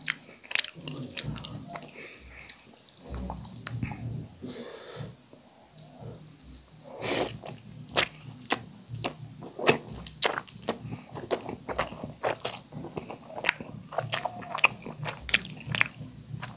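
Close-miked eating of spicy instant noodle soup: wet chewing and lip-smacking with many sharp mouth clicks.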